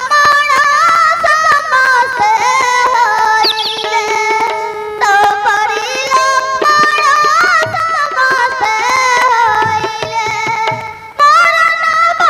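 Stage music for a Ramlila play: a high voice singing a wavering melody, with drums and other instruments accompanying. The song pauses briefly about five seconds in and again near the end.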